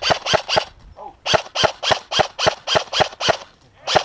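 Airsoft rifle firing rapid single shots at about three a second: a few shots, a pause of about a second, a run of about eight more, then one last shot near the end.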